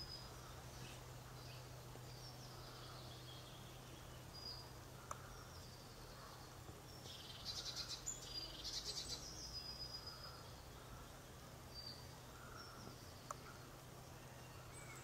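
Faint wild birdsong: short whistled notes and chirps here and there, with a louder buzzy trill about halfway through, over a steady low hum.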